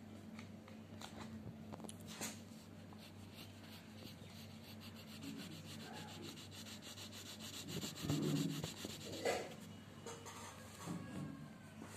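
Coloured pencil shading quickly back and forth on paper: a fast, even, scratchy rubbing, over a steady low hum. About two-thirds of the way in comes a louder bump of the paper or phone being handled.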